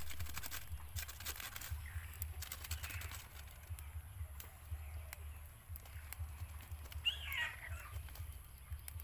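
Woven bamboo eel trap being knocked with a wooden stick and shaken to empty it: a quick run of clicks and knocks in the first few seconds, then scattered ones. A short bird call about seven seconds in, over a steady low rumble.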